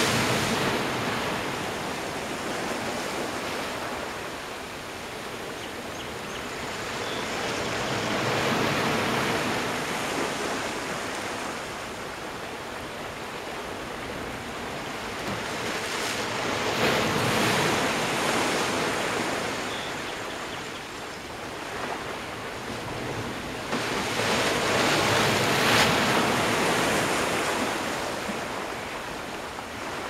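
Atlantic surf breaking on a rocky shore: a steady rush of churning water that swells into a crash about every eight seconds, four times, as waves hit the boulders.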